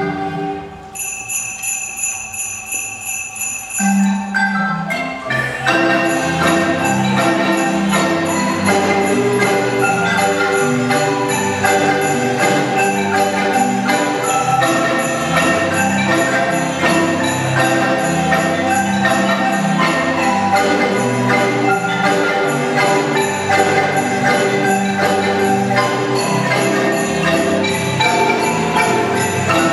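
Marimba ensemble playing a Christmas tune with jingle bells shaken along. It opens with the jingle bells nearly alone for a few seconds, then the wooden marimbas come in about four to six seconds in and carry on as a full ensemble.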